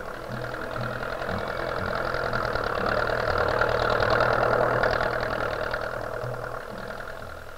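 Tractor engines running, growing louder about halfway through and then fading, as if machines are passing by.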